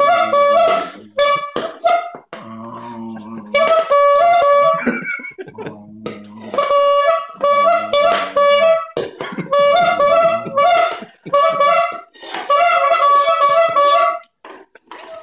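Chrome rubber-bulb squeeze horn honking loudly in five runs of quick blasts, flipping between two close notes, as the dog bites and squeezes the bulb. Short low growls come in a couple of the gaps.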